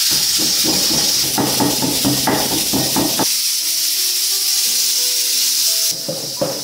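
Loud steady cooking hiss, as of food sizzling in a hot pan, cutting off suddenly near the end, over background music.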